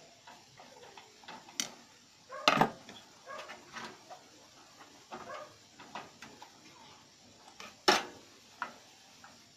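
Scattered clicks and metallic knocks of hands and tools working on a motherboard inside a steel desktop computer case. There are two louder sharp knocks, about two and a half seconds in and again near eight seconds.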